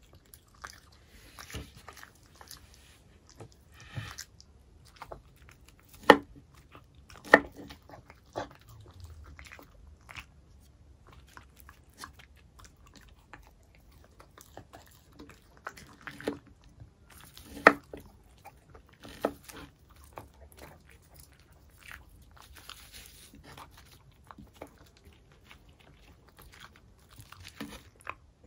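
A dog biting and chewing a soft homemade dog muffin with moist, wet mouth sounds. Several sharp, loud clicks stand out, the loudest about six, seven and eighteen seconds in.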